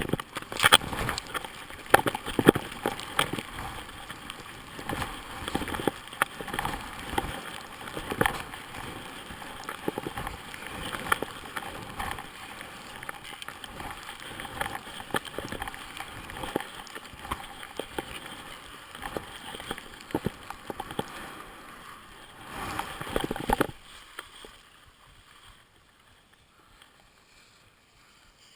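Skis sliding and scraping over snow during a run, with irregular clatter and knocks. The noise drops away suddenly about 24 seconds in as the skier comes to a stop.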